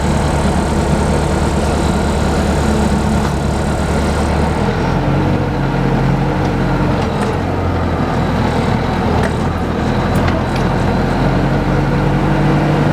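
Engine of a log-carrying forklift running steadily as it drives; about four and a half seconds in its low tone changes as the engine speed shifts.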